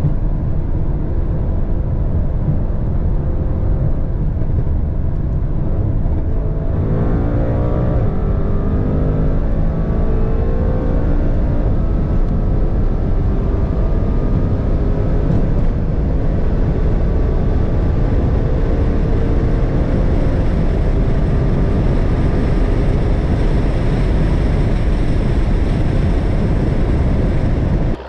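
Inside the cabin of a tuned Audi RS7 C8 at full throttle above 250 km/h. Its twin-turbo V8 pulls through the top gears under heavy wind and road roar, and the engine note rises steadily from about seven seconds in.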